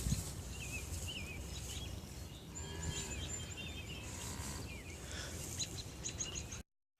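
Birds chirping in short, wavering calls over a steady low rumble of background noise; the sound cuts off just before the end.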